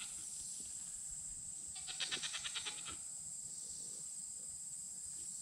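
A goat bleating once about two seconds in, a wavering, trembling bleat lasting about a second, over a steady high-pitched hiss.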